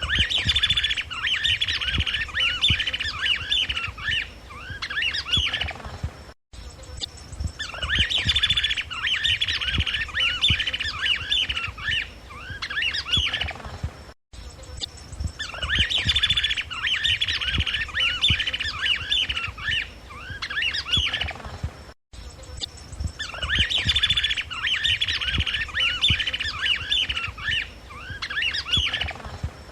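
Chapada flycatcher singing: a fast, dense chattering run of notes that thins into scattered notes, the phrase repeated about every eight seconds.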